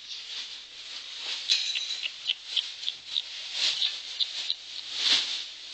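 Newborn kittens mewing in a run of short, high, thin squeaks, several a second, one held a little longer about a second and a half in.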